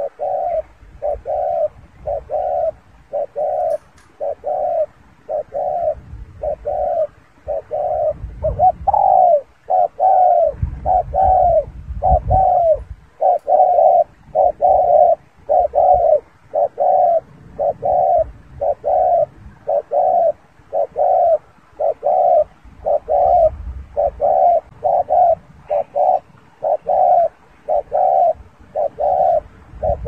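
Caged spotted dove cooing in a long, even series of short coos, about two a second, with a low rumble under some of them.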